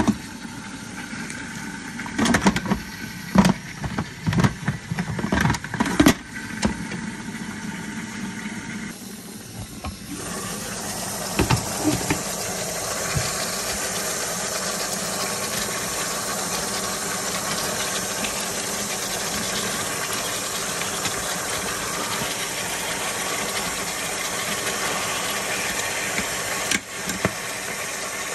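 Clatter and knocks of an electric pressure cooker's lid and pot being handled, then a steady hiss from the open pot of hot goat meat.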